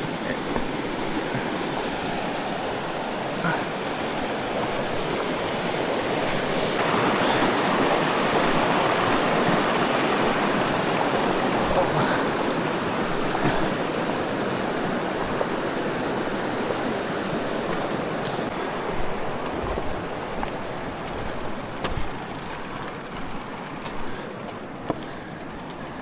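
Stream water rushing as a steady hiss, swelling about seven seconds in and easing off over the last part, with a few scattered knocks.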